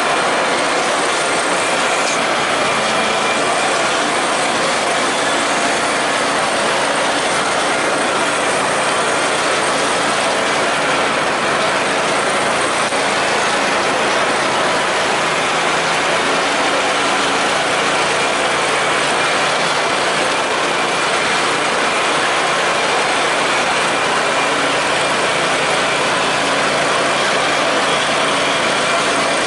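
Simplicity Legacy garden tractor engine running steadily as the tractor drives across a lawn.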